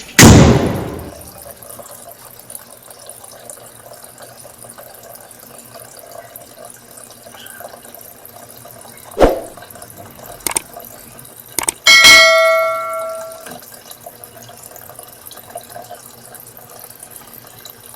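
Whirlpool washing machine with water running in under a steady faint hiss, opening with a brief loud rush. A few sharp clicks come a little past the middle, followed by a single electronic chime that rings for over a second and fades.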